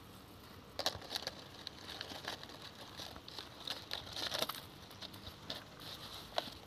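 Hands working through a wet cast net and its iron chain weights on a plastic tarp: scattered rustling and crinkling with light clicks, starting about a second in.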